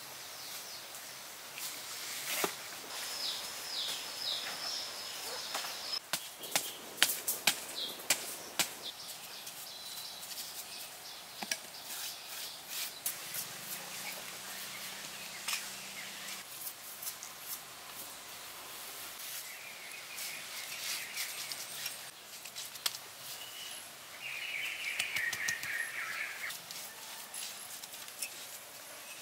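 Forest ambience with birds chirping, a run of calls about three seconds in and again near the end, over scattered sharp clicks and knocks from hand work, thickest in the first dozen seconds.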